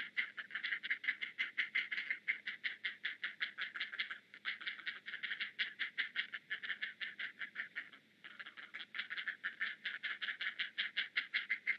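Great blue heron nestlings giving their rapid clacking begging calls at a parent returning with food, about six or seven sharp notes a second in long runs, broken by two brief pauses.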